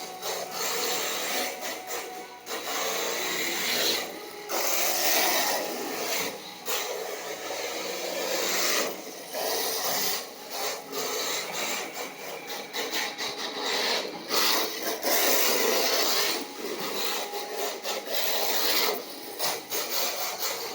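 Yokomo YD-2E electric RC drift car's tyres scrubbing and sliding across the floor in a rasping hiss that keeps breaking off and starting again as the car swings through drifts.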